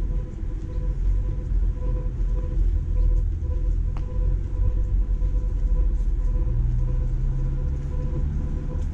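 Low rumble of street traffic, with a vehicle's engine tone rising in about six and a half seconds in. A steady thin whine sits over it throughout.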